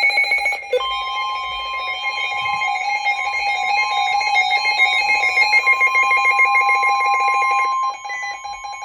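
Emergency alert tones opening a severe thunderstorm warning on NOAA Weather Radio. A weather radio's rapidly pulsing, many-toned alarm beep stops near the end. Under a second in, the steady single-pitch 1050 Hz warning alarm tone comes in and holds.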